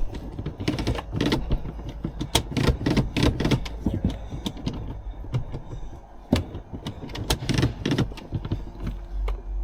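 Irregular clicks, taps and light rattles of hands working on wiring connectors and test leads, over a low steady hum.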